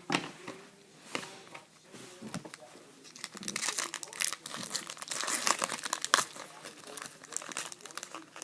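Trading-card pack wrapper being torn open and crinkled by hand. Scattered crackles come first, then a dense run of crinkling from about three seconds in to about seven seconds.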